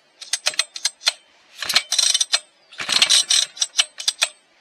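Husqvarna 1100 chainsaw being pull-started: three pulls of the recoil starter, each a quick run of ratcheting clicks as the engine turns over without firing yet.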